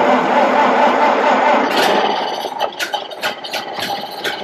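Ford Model A's four-cylinder flathead engine starting on the first try: a sudden loud burst as it catches, settling about two seconds in to a quieter, uneven idle.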